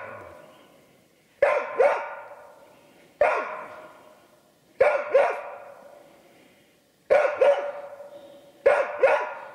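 Hunting laika barking at a squirrel it has found in a tree: loud barks, mostly in quick pairs, repeated about every one and a half seconds. Each bark is followed by a long fading echo.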